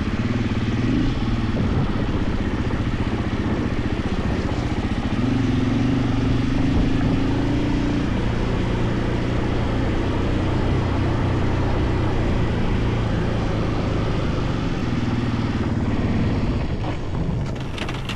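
KTM 450 EXC single-cylinder four-stroke enduro engine running as the bike rides along, over a steady rushing noise. The engine note strengthens about five seconds in and holds for a few seconds, then eases off near the end.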